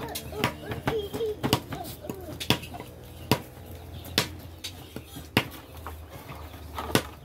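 A heavy knife chopping on a round wooden chopping block: single sharp strikes, irregularly spaced, about every half second to a second.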